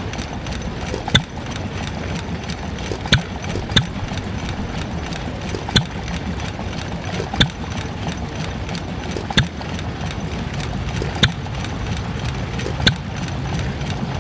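Small vintage single-cylinder stationary engine running slowly, driving a piston water pump. It gives a sharp firing bang every one and a half to two seconds, sometimes two close together, over a steady rumble of water splashing from the pump's outlet hose into a tub.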